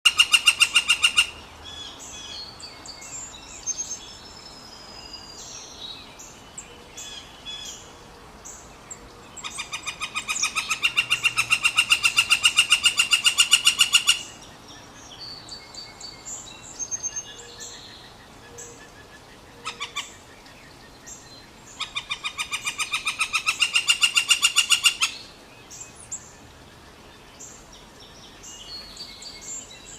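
Northern flicker giving its long call, a fast run of evenly repeated notes. It comes three times: briefly at the start, for about five seconds in the middle while growing louder, and for about three seconds near the end. Fainter short calls sound in the gaps.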